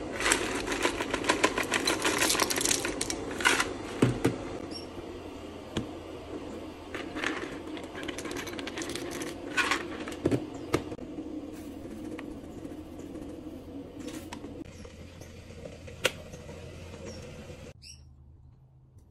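Kitchen food-preparation handling: a dense rattle of rapid clicks for the first few seconds, then scattered knocks and clinks of bowls and containers over a low steady hum, which drops away near the end.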